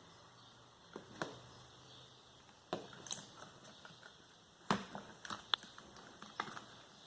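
Scattered sharp clicks and light knocks from hands working on the fan's motor wiring, about half a dozen, the loudest nearly five seconds in.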